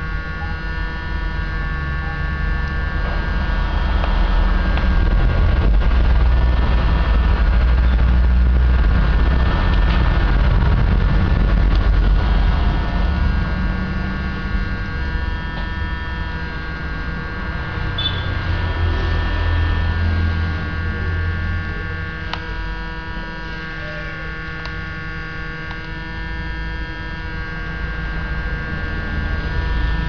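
Steady electrical hum with many held tones, over a low rumble that swells and fades, with a few faint clicks.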